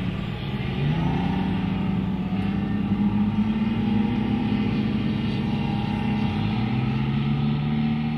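Diesel engine of an ASLAV eight-wheeled armoured vehicle running steadily, its note stepping up slightly about a second in.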